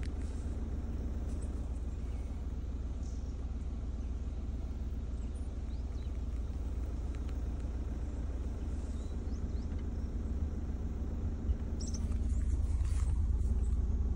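Car engine running with a steady low rumble, heard from inside the car. A few faint high bird chirps come and go over it.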